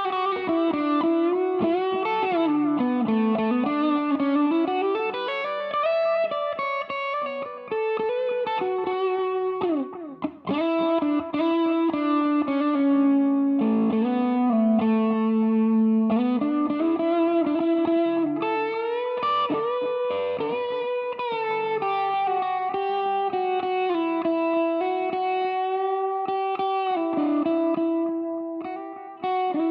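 Electric guitar through a Mooer Green Mile overdrive pedal, a Tube Screamer clone, in its 'Hot' mode, playing single-note lead lines with bends and slides. The playing breaks off briefly about ten seconds in and again near the end.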